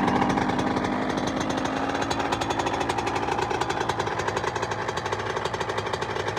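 Freshly rebuilt Suzuki RM85 two-stroke dirt-bike engine running just after starting on the first kick, with a rapid, even popping. It settles slightly in level over the first couple of seconds, then idles steadily.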